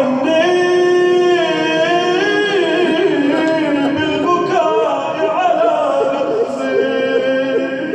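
Melodic vocal chanting with no clear words: long held notes that waver and glide, in several overlapping voice lines.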